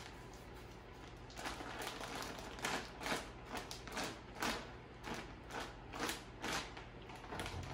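Plastic bag of frozen shredded potatoes shaken over a baking dish: the bag crinkles and the frozen shreds drop into the pan. After a quieter second and a half it comes in short rustling bursts, about two a second.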